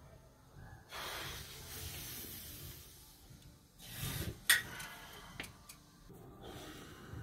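Breathing close to the microphone: a long soft exhale, then a louder breath ending in a sharp click about three and a half seconds in, a couple of lighter ticks, and another breath near the end.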